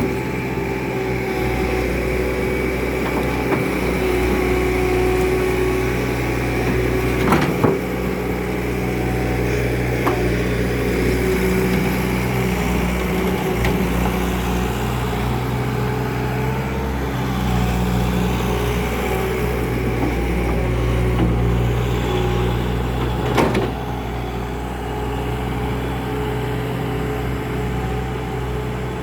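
Bobcat's engine running steadily, its revs rising and falling a little as the machine works. Sharp knocks of the bucket on concrete come twice in quick succession about a quarter of the way in, and once more about three quarters through.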